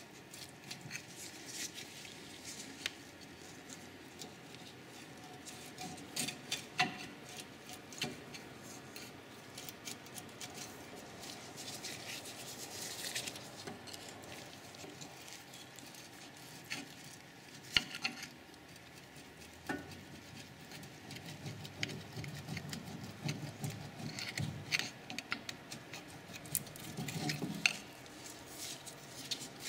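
Faint metal-on-metal scraping and clicking as a flathead screwdriver pries a Dodge Grand Caravan rear brake caliper away from its carrier and the caliper slides off the brake pads. A few sharper clicks stand out, the loudest about 18 seconds in.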